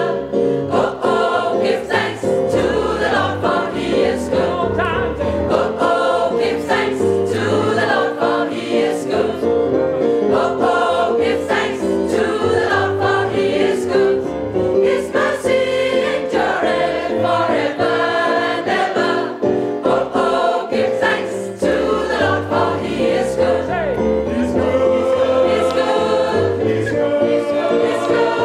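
A gospel choir of about 37 mixed voices singing an upbeat song together, with the singers clapping their hands along to it.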